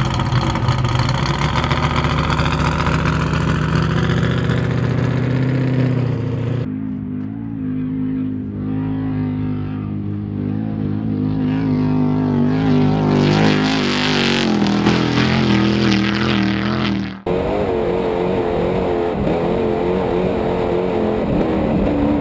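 Off-road trophy truck's engine revving as the truck pulls away, then accelerating hard across dirt, with a rising hiss of spraying dirt and gravel about two-thirds of the way in. In the last few seconds the engine is heard from on board, running steadily at speed.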